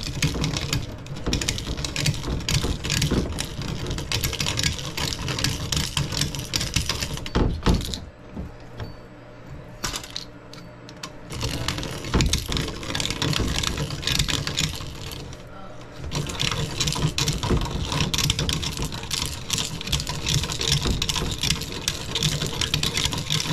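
Hand deburring tool with a swivel blade scraping around the inside rim of a copper tube end on an evaporator coil: a rapid, rasping scrape and click. It stops for a few seconds about eight seconds in, and briefly again near sixteen seconds.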